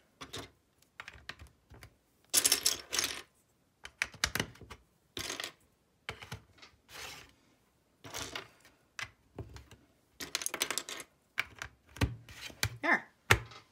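LEGO plastic bricks clicking and clattering: pieces rattle as they are picked from a loose pile, then click as they are pressed onto a base plate and stacked. The sound is an irregular run of sharp clicks with several short rattling bursts.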